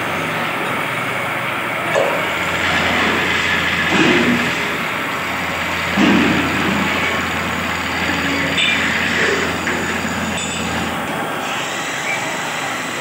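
Wood lathe running while a hand-held turning chisel cuts into a large spinning wooden blank. The cutting makes a steady rough scraping hiss over the hum of the lathe's electric motor, with a few short louder bites of the tool.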